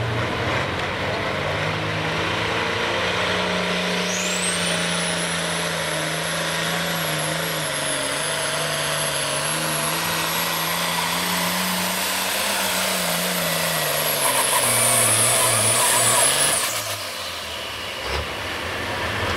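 Farmall pulling tractor's turbocharged diesel engine at full power, hauling the sled on a tractor-pull run. A thin high turbo whistle rises in about four seconds in and holds over the steady engine note. The engine backs off near the end as the pull finishes.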